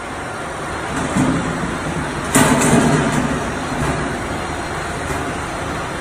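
Workshop noise with a galvanized sheet-metal duct piece being handled, and a sharp metallic clank about two seconds in.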